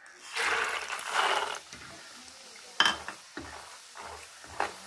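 Raw peanuts tipped into hot oil in a pan, setting off a burst of sizzling for about a second and a half. A metal ladle then stirs them, knocking sharply against the pan a few times, loudest near the middle.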